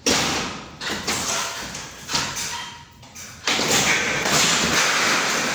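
Ceiling boards being wrenched loose from their metal framing: a sudden scraping crack at the start and two more about a second apart, then a longer, louder stretch of scraping and cracking in the second half as a board breaks free and falls.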